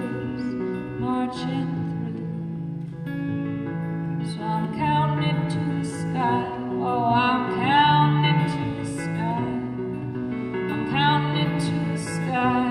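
A woman singing a slow folk song live, accompanying herself on acoustic guitar.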